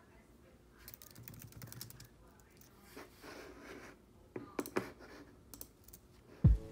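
Light key clicks of typing on a MacBook laptop keyboard, scattered and faint. Near the end, music comes in with a loud deep bass thump and a held chord.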